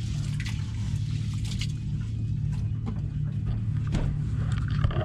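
Rice being washed by hand in a metal pot of water, with scattered light splashes and scrapes. Under it, a boat engine hums steadily.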